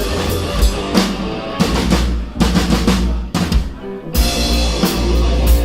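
Instrumental passage of a rock song with the drum kit to the fore, bass drum and snare hits over a steady bass line.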